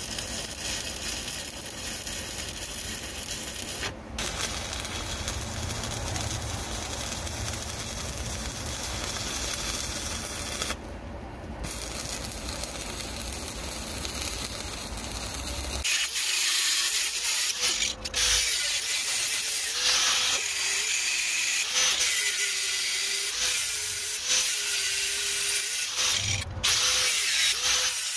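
Power tool working steel angle iron: a steady hissing run, briefly broken twice, that turns harsher and higher a little over halfway through, with a faint whine that keeps breaking off.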